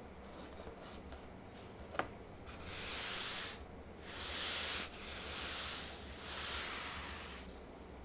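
Hands sliding across a desk mat's fabric surface to smooth it flat: four long swishes of about a second each, after a single sharp tap about two seconds in.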